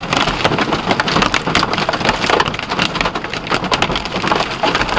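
Hail and heavy rain pelting a truck's windshield and hood while driving: a dense, loud, irregular clatter of hits over a steady wash of rain and road noise.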